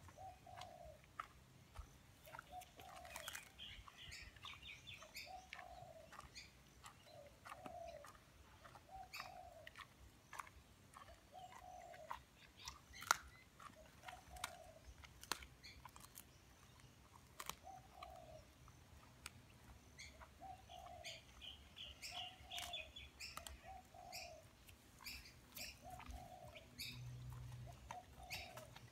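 Faint birdsong: a low call repeated every second or two, with two bursts of high chirping. Through it come sharp clicks and cracks of a black Labrador's teeth crunching a frozen chicken wing; the loudest crack comes about halfway through.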